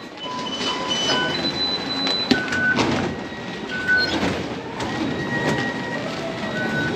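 Rail station fare gates beeping again and again at several different pitches as passengers pass through with tokens, with a few sharp clacks from the gates over a steady concourse hubbub.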